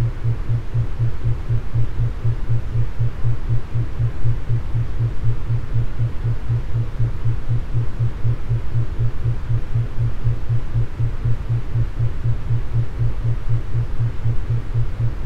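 Brainwave-entrainment 'beat': a low hum pulsing on and off evenly several times a second over a soft hiss, made to induce sexual arousal.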